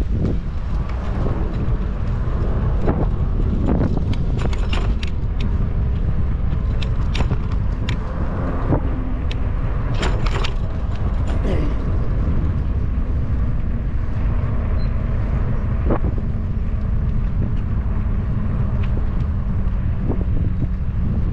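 Wind buffeting the microphone of a camera carried on a moving bicycle, a steady low rumble, with scattered light clicks throughout.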